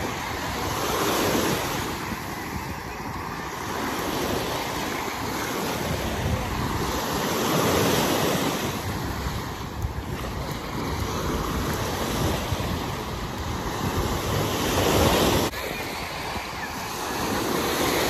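Small waves breaking and washing up on a sandy shore, the surf swelling and easing every few seconds, with some wind rumbling on the microphone.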